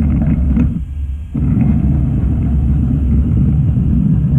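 Model Santa Fe SD26 diesel locomotive running along the track: a steady low rumble that dips briefly about a second in.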